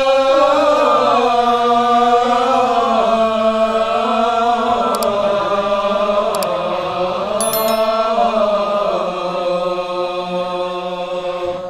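A man chanting a hikayat verse in the slow Sasak nembang (tembang) singing style, drawing each syllable out into long held notes that bend slowly up and down.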